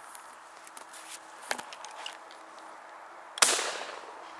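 A single loud shotgun shot about three seconds in, with a short fading echo. Before it come rustling and steps through tall grass.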